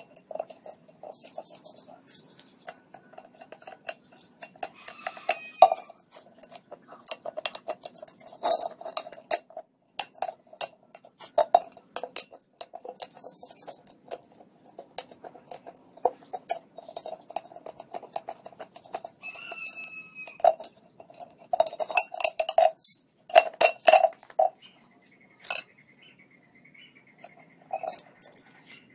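A metal kettle clinking and scraping as it is handled and worked on: many irregular knocks with a ringing metallic note, busiest about 21 to 25 seconds in.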